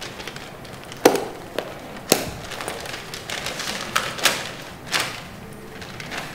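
A handful of sharp knocks and taps at irregular intervals, the loudest about a second in.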